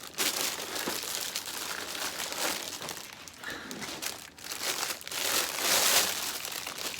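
Plastic packaging crinkling in uneven handfuls as a ring light is unwrapped, loudest about five to six seconds in.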